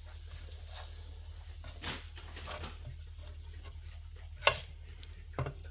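Metal spatula knocking and scraping on a non-stick electric griddle: a few sharp clacks, the loudest about four and a half seconds in.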